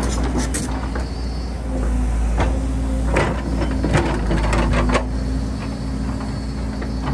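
Excavator's diesel engine running with a steady low hum, with repeated metallic clanks and knocks of the bucket working rock and soil.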